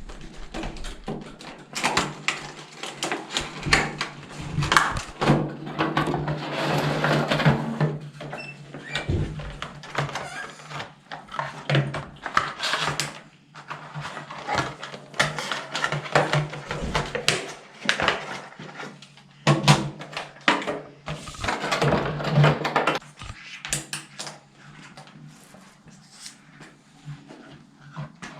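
Irregular clicks, knocks and rustling as a small plastic toy drone and its packaging and batteries are handled, over a faint steady low hum.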